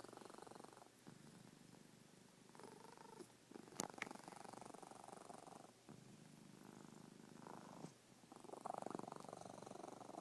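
Cat snoring faintly, a rapid fluttering rasp on each breath in and out, with a short sharp click about four seconds in.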